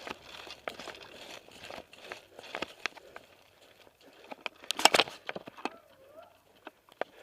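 Dry leaves and brush rustling and crunching underfoot and against clothing and gear, with scattered sharp snaps and clicks. The loudest cluster of snaps comes about five seconds in.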